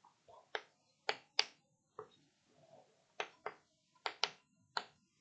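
Chalk on a blackboard while writing: faint, irregular sharp taps and clicks, about nine in five seconds.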